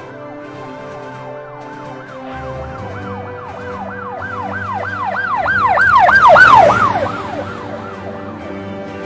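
Emergency-vehicle siren sweeping rapidly up and down, about three sweeps a second, over background music. It grows louder to a peak about six seconds in, then fades away as if passing by.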